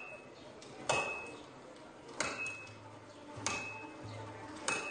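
A hammer striking metal at a steady pace, four blows about 1.2 seconds apart, each blow ringing briefly.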